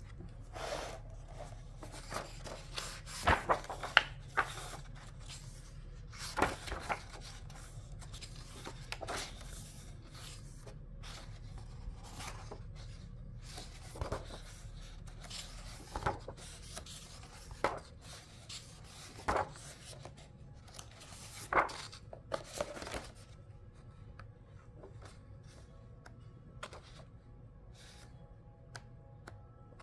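Pages of a hardcover picture book being turned and pressed open by hand: a short paper swish or rustle every couple of seconds, which thins out and gets quieter near the end.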